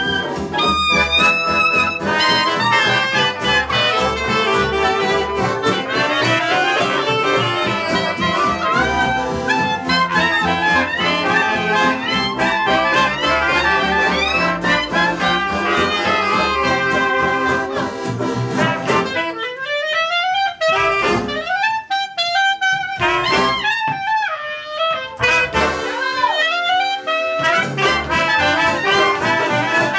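Gypsy-jazz (jazz manouche) band playing live: saxophone, trumpet, clarinet, flute and trombone over acoustic guitar and double bass. A bit past halfway, the full band drops away for several seconds to a single wind instrument playing sliding phrases. The whole band comes back in near the end.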